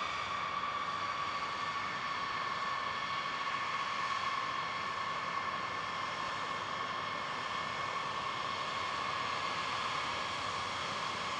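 B-52 Stratofortress's eight turbofan jet engines running at taxi power as the bomber taxis: a steady high whine over a rushing hiss.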